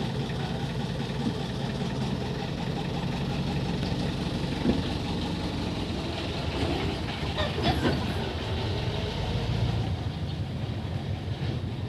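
An engine idling steadily, with a few light knocks partway through.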